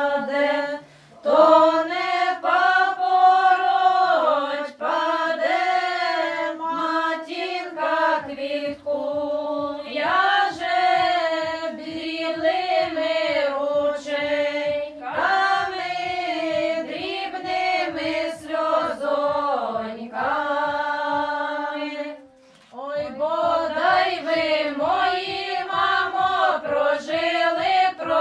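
A group of women singing a traditional Ukrainian wedding ritual song together in long, held phrases, with short breaths between phrases about a second in and again near the end.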